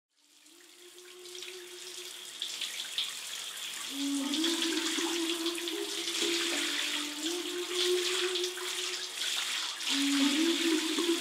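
Running water, like a shower, with a slow melody of long held low notes that steps up and repeats about every three seconds, fading in from silence over the first couple of seconds.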